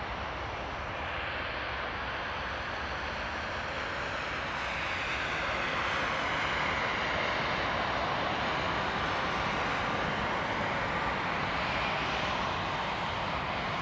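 Jet engines of an Embraer 195 airliner (GE CF34 turbofans) running with a steady roar that swells louder about five seconds in, as thrust is set for the take-off roll.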